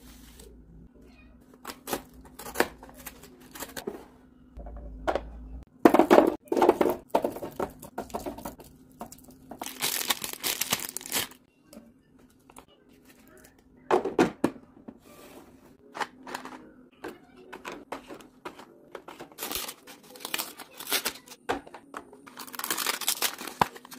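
Packaging being handled: plastic wrappers crinkling and tearing, with a series of clicks and knocks as packaged food items, sliced cheese and creamer cups, are set into clear plastic storage bins. The longest crinkling comes about ten seconds in and again near the end.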